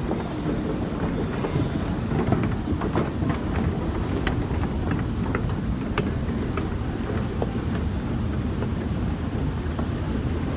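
Steady low rumble of a running London Underground escalator in its shaft, with scattered light clicks through the first half.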